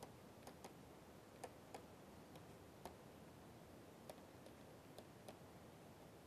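Faint, irregularly spaced clicks of a stylus tapping on a tablet screen during handwriting, over near-silent room tone.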